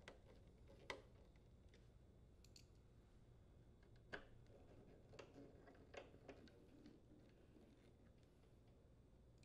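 Faint, irregular clicks and light taps of a hand screwdriver driving screws into a refrigerator's fiberboard rear access panel, over near silence.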